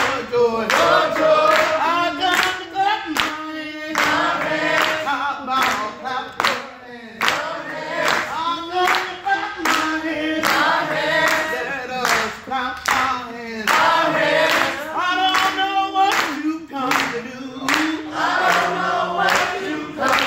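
Church congregation singing a gospel praise song together, with steady rhythmic hand-clapping in time, about two claps a second.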